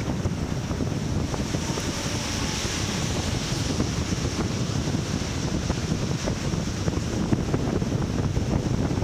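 Wind buffeting the microphone of a helmet-mounted camera on a moving bicycle: a steady, rough rush of noise, heaviest in the low rumble, with no break.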